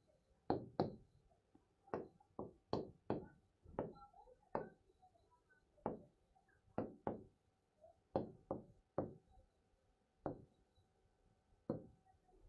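Pen tip knocking against the glass of an interactive display as letters are handwritten on it: a string of short, sharp taps at an uneven pace, about one or two a second, one for each stroke.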